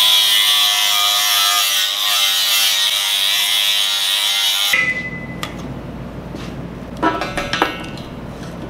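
A small high-speed power tool's motor running loudly and steadily for about four and a half seconds, then cutting off suddenly.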